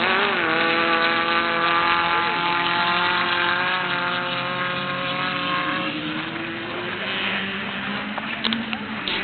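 Off-road race car engine running at steady revs, then fading away after about six seconds as it moves off.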